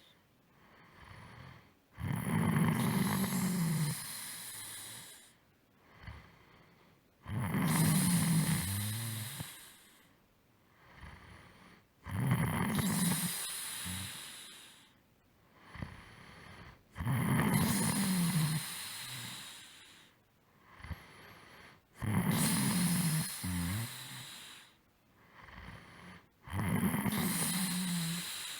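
A sleeping person snoring in a regular rhythm: six snores, about one every five seconds, each opening with a fluttering low buzz and fading off, with a shorter, softer breath between each pair.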